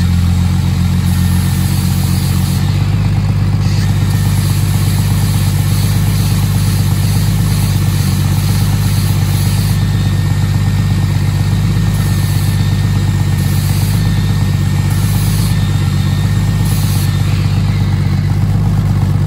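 Jeep Cherokee XJ engine idling steadily in low gear, spinning the transfer-case output shaft, while an angle grinder cuts into the spinning shaft end in several on-and-off spells of high grinding hiss.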